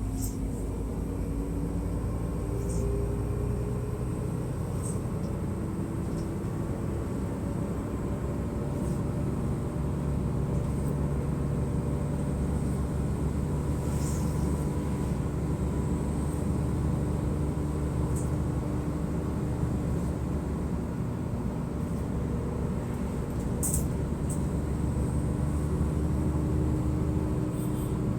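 Mercedes-Benz O500MDA bi-articulated bus's diesel engine running steadily, its pitch drifting slowly up and down, with a few light clicks and rattles.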